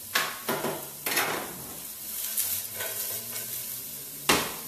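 Zucchini noodles sizzling in a sauté pan, with a utensil stirring and scraping through them in several short strokes.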